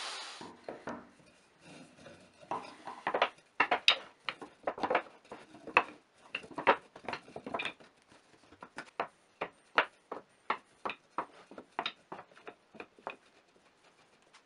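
Rapid, irregular clacks and knocks of hard wooden pieces being handled, set down and knocked against one another, like cut cutting-board strips or blocks being shuffled on a bench. The knocks come thickest in the middle and grow sparser near the end, just after a power tool stops at the very start.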